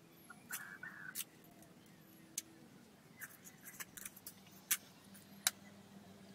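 A fish being scraped and cut against an upright blade: a few irregular sharp scraping clicks as the blade catches the scales and skin, two of them louder near the end.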